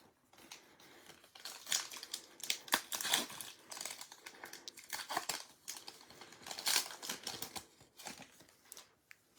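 Foil trading-card pack wrapper being torn open and crinkled by hand, in irregular rustles lasting several seconds.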